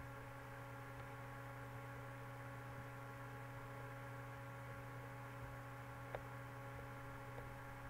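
Steady electrical mains hum with several steady overtones, and one faint click about six seconds in.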